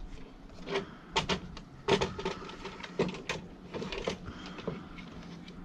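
Irregular clicks and knocks of a car vacuum's plastic housing and motor assembly being handled and turned over by hand.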